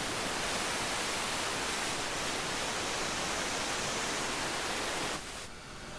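Small Hercus CNC lathe running while turning the outside diameter and facing a delrin blank: a steady, even hiss that drops away about five seconds in.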